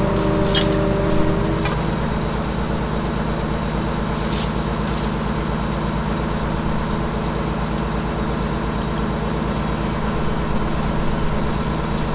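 A vehicle engine running steadily with an even low throb. A higher steady whine over it stops about two seconds in.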